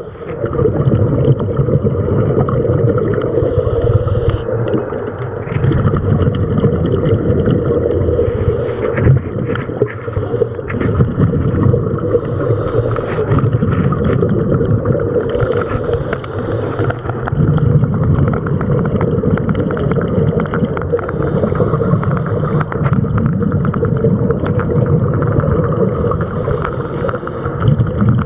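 Underwater sound heard through a camera housing: a scuba diver's regulator breathing, with a short hiss every four to five seconds over a steady low rumble.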